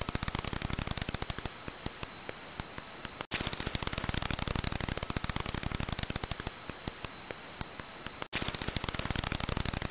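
Brown long-eared bat echolocation calls made audible, heard as sharp clicks: each run starts as a rapid train and thins to a few spaced clicks a second. The pattern repeats about every five seconds, with a brief break between repeats.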